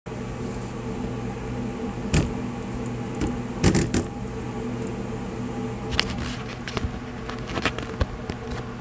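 Steady hum of commercial kitchen machinery, with a few sharp knocks and clanks scattered through it, the loudest about two seconds in and just before four seconds in.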